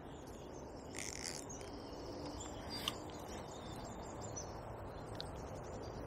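Small birds chirping and singing faintly over a steady low rush of flowing river water, with a single brief click about halfway through.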